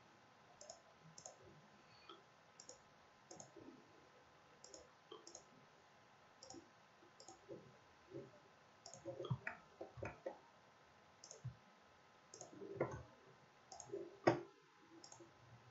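Faint, irregular clicks of a computer mouse, a few louder ones in the second half.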